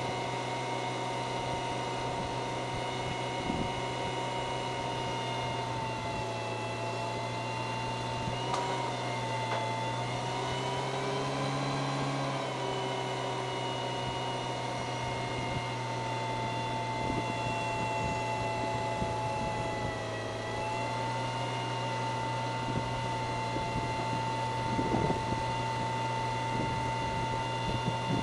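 Datsun Stanza doing a stationary burnout: the engine is held at high revs while the rear tyres spin and screech. The sound is steady, with its pitch sagging and recovering a couple of times.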